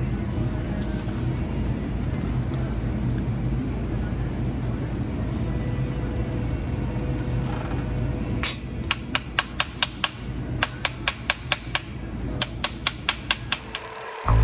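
Hammer striking a metal casting flask over a bucket of quench water to break out the hardened investment: quick runs of sharp metallic taps, about five a second in groups of five or six, starting about halfway through. The investment needs breaking out because boric acid in the water has hardened it. Before the taps there is a steady low rumble, and guitar music starts at the very end.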